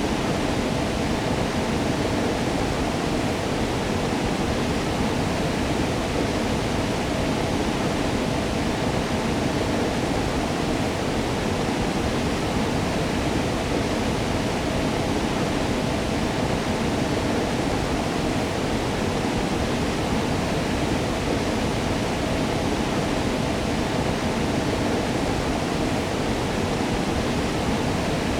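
Waterfall: water falling and splashing in a steady, even rush with a deep low rumble.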